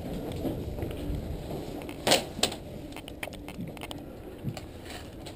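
A few sharp clicks and knocks, the loudest pair about two seconds in, over a low background rumble.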